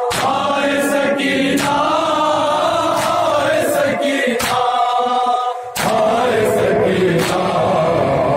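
Group of men chanting a noha in unison, kept in time by regular chest-beating (matam) hand slaps, about one every 0.7 seconds. The chant and slaps break off briefly a little after five seconds in.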